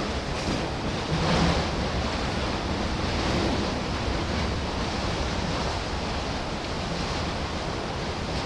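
Steady rushing rumble of a freight train's autorack cars rolling past, wheels running on the rails.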